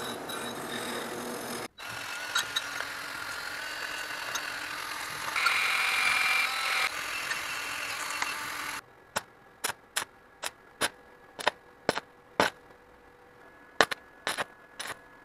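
Cast iron being cleaned with power wire brushes: first a bench-mounted spinning wire wheel, then after a cut a handheld rotary wire brush scouring with a steady rasping whir and a faint whistle. From about nine seconds in, this gives way to sharp irregular cracks and pops, about two a second, from arc welding on the iron.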